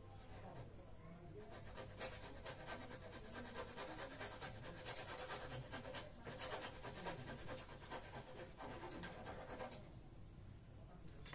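Small hand saw cutting through a wooden dowel, quick back-and-forth strokes that stop about a second and a half before the end.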